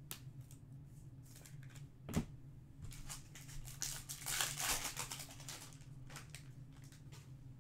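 A foil trading-card pack being torn open, crinkling, with small clicks and taps of handling and one sharp thump about two seconds in.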